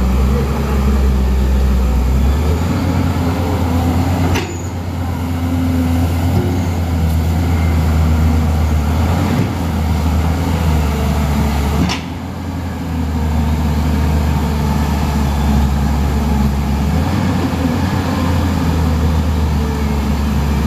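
JCB crawler excavator's diesel engine running steadily under load as the machine travels on its tracks. Two short sharp clicks break the engine note, about four and twelve seconds in.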